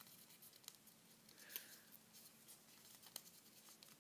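Faint ticks and crinkles of a sheet of paper being creased and folded by hand, with a couple of slightly sharper crackles.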